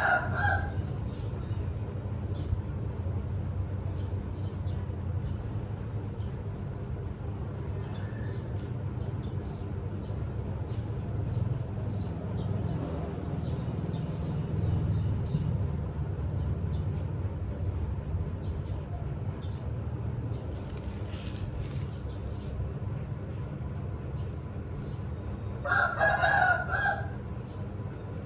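Rooster crowing: one crow of about a second near the end, and the tail of another crow right at the start. A steady high-pitched whine and a low rumble run underneath.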